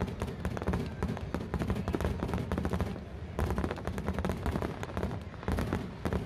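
Aerial fireworks display: many shells bursting in rapid, overlapping pops and crackles with a dull low rumble underneath, dipping briefly about halfway through.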